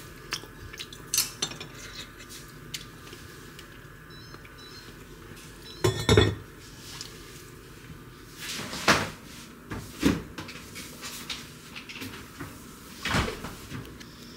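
Kitchen clatter of cookware: a heavy Staub cast-iron lid set down on its pot with a loud double clank about six seconds in, among several lighter clinks and knocks of utensils.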